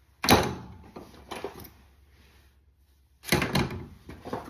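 Tools being handled and rummaged out of a tool bag, with clunks and rustling in two bursts, the second about three seconds in.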